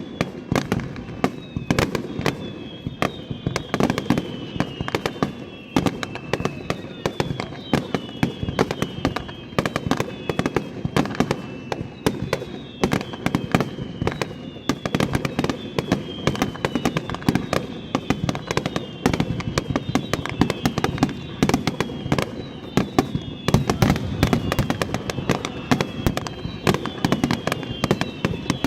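Fireworks display: a dense, continuous barrage of shells bursting and crackling, with repeated high whistles that fall in pitch every second or two.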